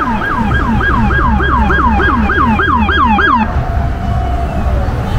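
Emergency-vehicle siren on a fast yelp, about three falling sweeps a second, over a low rumble. About three and a half seconds in the yelp stops and the siren slides down on one lower tone as it winds down.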